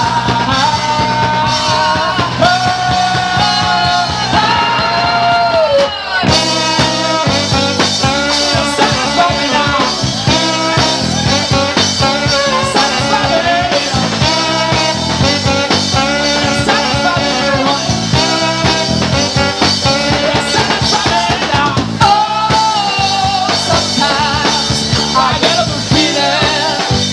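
A live rock band playing a song. A held, gliding melodic line leads for the first few seconds, then about six seconds in the full band and drums come in with a fast, steady beat.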